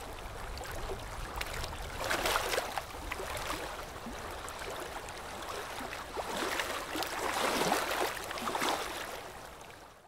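Dental ultrasonic scaling: the scaler's water spray and the mouth suction hiss and gurgle, with louder stretches twice, fading out at the end.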